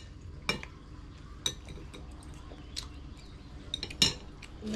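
Spoon clinking and tapping against a plate during a meal: a handful of short sharp clinks a second or so apart, the loudest about four seconds in.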